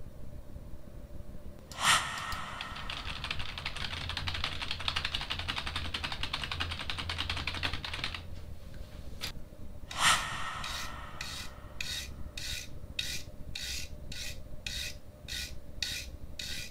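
Computer keyboard typing for about six seconds, then after a short pause a toothbrush's bristles scraped back and forth across the metal mesh grille of a Boya BY-PM300 USB microphone, about two strokes a second, heard close up through that microphone.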